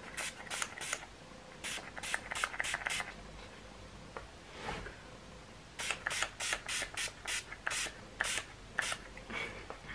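Small plastic fine-mist pump spray bottle of water being pumped over and over, each press a short hiss. The presses come in quick runs of four to seven, about twenty in all. The water is being misted onto dried foundation on the skin to test whether it is waterproof.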